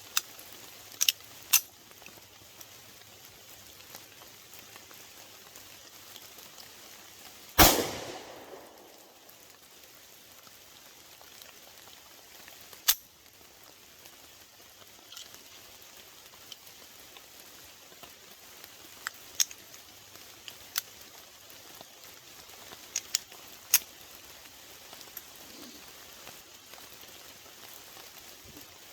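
A single gunshot from a homemade prototype pistol about eight seconds in, its report trailing off for about a second, over the steady patter of rain. Scattered sharp ticks come and go throughout.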